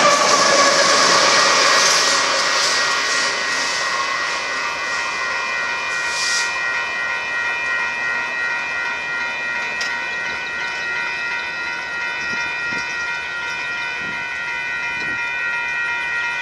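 Union Pacific diesel locomotives running, their pitch falling in the first second or two as they move away, then a steady whine of several high tones at a constant level.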